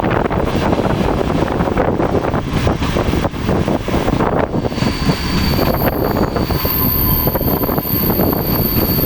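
A passenger train rolling in on the rails, with a loud, steady rumble of wheels on track. About five seconds in, a steady high-pitched squeal joins it, typical of the train braking as it arrives.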